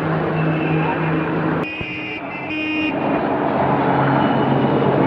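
Motor traffic with a steady hum, and a horn-like tone sounding twice in quick succession about two seconds in.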